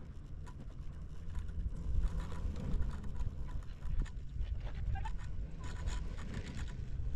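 Riding a double chairlift: a steady low rumble of wind on the microphone and the moving lift, with faint clicking. Near the end a brief rattle as the chair passes the sheaves of a lift tower.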